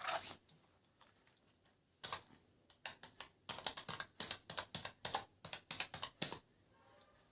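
Keys of a new Circle computer keyboard being pressed: a short burst of key presses at the start, a pause, then a fast run of keystrokes from about two seconds in that stops shortly before the end.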